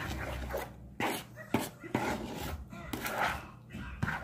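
Metal spoon stirring a wet dressing mixture of bread, eggs and buttermilk in a plastic bowl: squelching and scraping, with irregular knocks of the spoon against the bowl.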